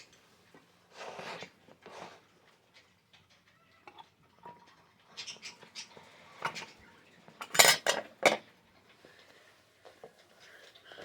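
Hard objects being handled, clattering and knocking, with a cluster of sharp clicks and knocks about two-thirds of the way in.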